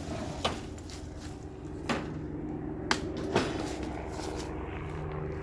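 Walk-behind lawn mower engine running steadily, with a few sharp knocks and clicks over it about half a second, two, three and three and a half seconds in.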